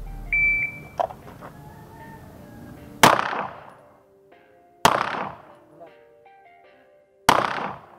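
A shot timer gives one short high beep. Then a pistol fires three shots about two seconds apart, each with a short ringing echo.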